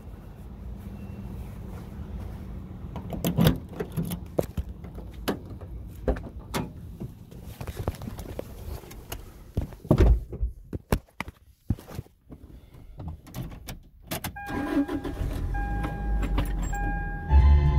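Clicks, knocks and rustling from a phone being handled as a person gets into a car, over a low rumble, with one loud thump about ten seconds in. Music fades in over the last few seconds.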